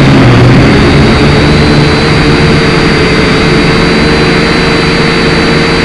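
Syma X5C quadcopter's motors and propellers whining steadily in flight, heard close up through the drone's own onboard camera microphone: a constant high whine and a lower hum over a loud rushing hiss.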